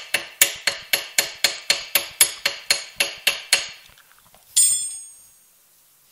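Repeated metal-on-metal tapping, about three blows a second, as the front axle shaft of a Yamaha Majesty 125 scooter is knocked out with a makeshift striking tool in place of a dead-blow hammer. The blows stop after about four seconds, and a single louder ringing metal clank follows about half a second later.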